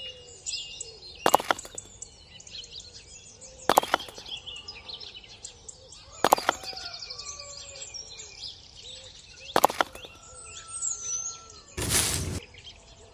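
Small birds chirping and tweeting steadily in the background, with four sharp knocks a few seconds apart as small wall panels of a model house are set down, and a brief rustle near the end as its artificial-grass roof is pressed on.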